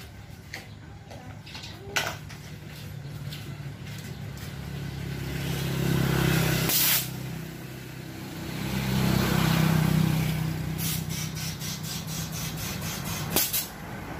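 Motor vehicles passing on a road, their engine hum swelling and fading twice. A short, loud hiss comes about seven seconds in, and a run of rapid clicks comes near the end.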